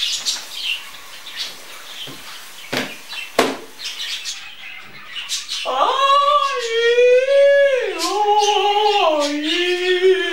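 A woman's voice sings long, loud, high held notes that step down in pitch and waver, starting about halfway through. Before that there are only scattered short chirps and a few sharp clicks.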